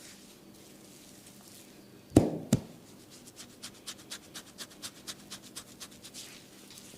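Massage percussion on the body: two loud slaps in quick succession, then a fast run of light taps at about four a second that stops near the end.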